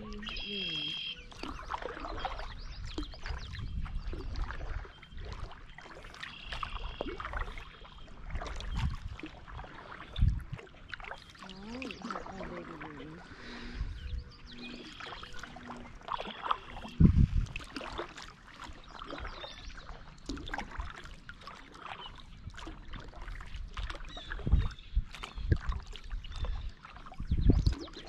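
Kayak paddling: a double-bladed paddle dipping and pulling through calm water with splashes and drips, and a few low thumps.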